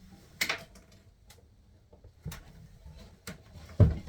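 Scattered sharp knocks and clicks of bed-frame parts and tools being worked by hand, about one a second, ending in a louder heavy thump near the end.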